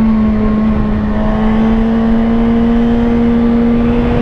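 Suzuki GSX-R1000 (2017) inline-four engine pulling steadily under way through its stock exhaust, its note holding almost one pitch and creeping slightly higher, with a constant rush of wind noise.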